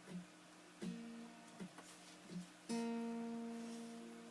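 Two plucked guitar notes, each ringing on and fading slowly; the second, about two and a half seconds in, is louder and holds to the end. A few faint soft knocks fall between them.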